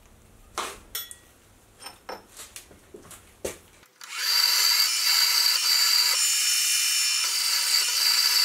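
A few light metal clicks and taps from an Allen key at the mill vise. About four seconds in, a Sieg X2.7 mini mill's spindle cuts in abruptly and runs loud and steady with a high whine, its twist drill boring a hole through a thick steel flat bar.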